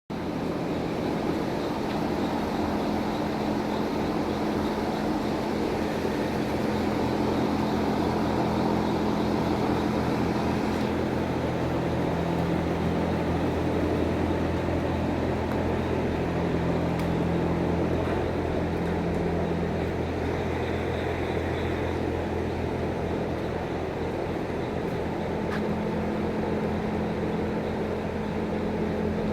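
A steady machine drone with a constant low hum, like an engine or motor running without a break.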